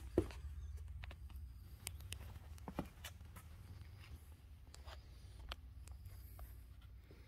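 Faint scuffs and small clicks of a person moving and stepping on a concrete floor, over a low steady rumble. The clicks are loudest just after the start and again around three seconds in.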